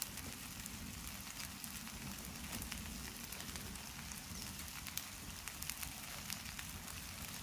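Noodles frying in a pan, the water left in the pan steaming: a steady sizzling hiss with scattered sharp crackles throughout.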